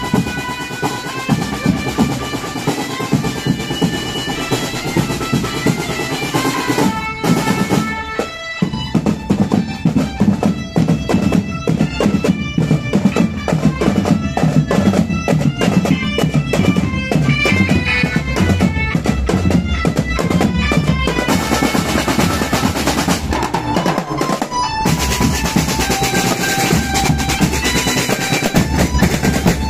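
School marching drum band playing: snare, tenor and bass drums beating under a reedy melody from a keyboard played through a horn loudspeaker. The drums drop out briefly about eight seconds in, then come back in dense, rolling strokes.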